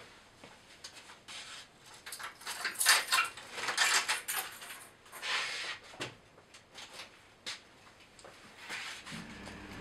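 Metallic clinking and rattling as a mountain bike is handled and taken out of a wooden-slatted cellar storage compartment, in bursts that are loudest about three to five seconds in. A faint steady hum starts near the end.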